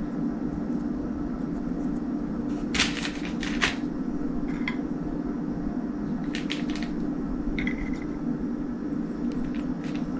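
A few light clinks and taps of kitchen utensils and dishes over a steady low hum, one clink ringing briefly. This is the sound of sticky almond cookie dough being portioned and shaped onto a baking tray.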